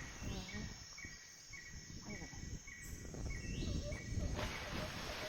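Outdoor ambience on a hiking trail: a steady series of short high chirps, about three every two seconds, over low rumbling wind and handling noise. Near the end a lower chirp takes over the same rhythm.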